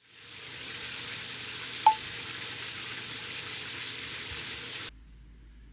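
A steady hiss fades in and cuts off abruptly near the end, with one short sharp ping about two seconds in.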